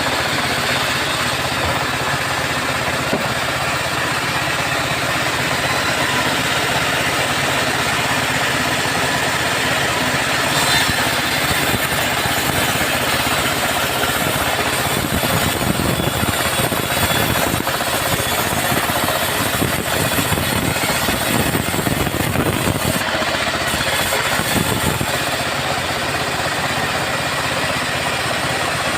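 Long-bar chainsaw (gergaji selendang) running continuously as it saws teak logs, its note swelling a little partway through.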